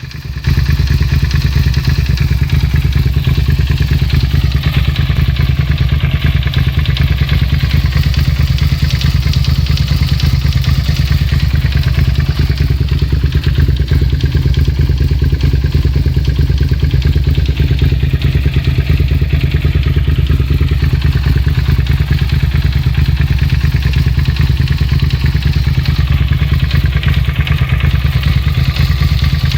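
2003 Suzuki SV650's 645 cc V-twin engine running steadily at idle, warmed up, with a knocking, ticking tap in its running. The noise is absent from a cold engine and only appears after about five minutes of warm-up, and the owner hears it more clearly on the right side of the engine.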